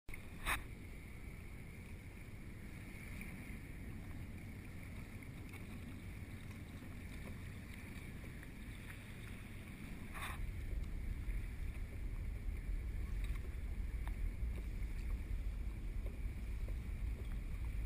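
Wind buffeting the microphone over lapping water around a kayak, growing louder about ten seconds in. Two short sharp clicks stand out, one about half a second in and one about ten seconds in.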